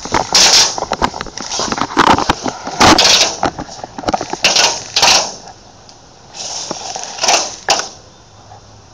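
Irregular clattering, knocking and rustling from an airsoft player's gear and replica rifle as he moves, loud and dense for about five seconds, then quieter with a couple more knocks.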